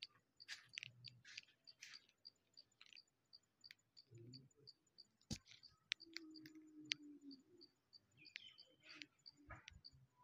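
Faint, steady chirping of an insect, about four high pulses a second, with scattered faint clicks.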